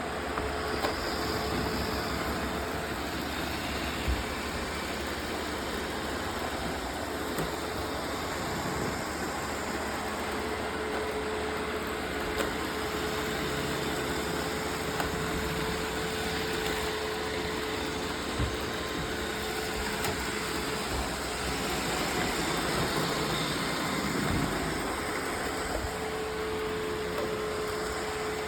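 Roomba robot vacuums running: a steady motor and fan drone with a whine that comes and goes, and a few light knocks.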